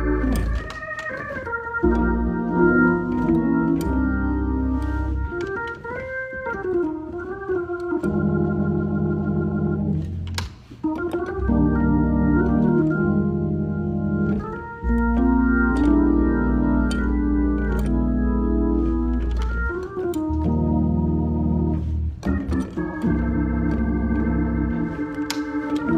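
Gospel-style organ playing: sustained chords that change every second or two over deep bass notes, with a few wavering, sliding passages.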